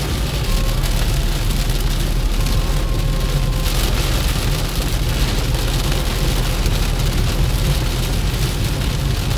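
Heavy rain beating on a moving car, heard from inside the cabin, over a steady low rumble of the engine and tyres on the wet road.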